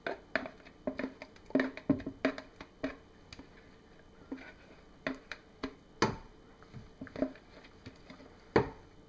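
A stirring utensil knocking and scraping against the pot while thick cold process soap batter is given a quick stir. The sharp clicks and knocks come irregularly, with the loudest ones a couple of seconds in, about six seconds in, and near the end.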